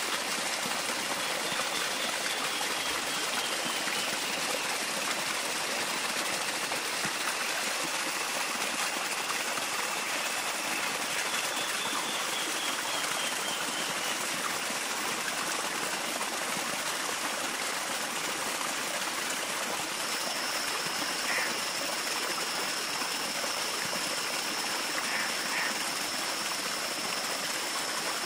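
Steady rush of running water, like a stream, without pause. A thin, steady high tone joins it about two-thirds of the way through.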